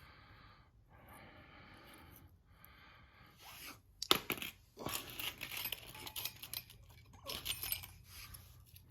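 Breathing close to the microphone, then from about three and a half seconds in, small loose metal engine parts clinking, rattling and scraping as they are handled, with the sharpest clink about four seconds in.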